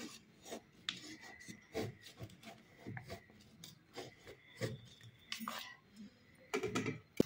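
A thin bamboo stick scraping and poking inside a bamboo tube in short, irregular strokes, digging out tightly packed namsing (fermented dried-fish paste), with a few wooden knocks near the end.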